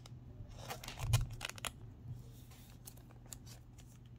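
Pokémon trading cards being handled and set down on a table: a cluster of crisp clicks and rustles with a soft thump about a second in, then a few faint ticks over a low steady hum.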